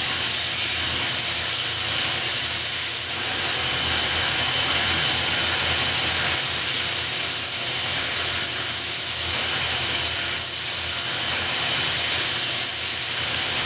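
Belt grinder running with a steel cleaver blade pressed against the abrasive belt: a steady grinding hiss with a faint high whine, growing brighter every few seconds with each pass. This is the finishing grind on the blade before sharpening.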